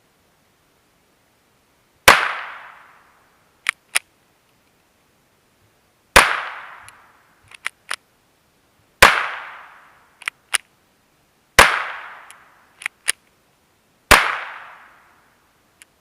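Ruger Mark IV 22/45 Lite .22 LR pistol firing five single shots a few seconds apart, each crack followed by a short echoing tail. About a second and a half after each shot come two faint clicks.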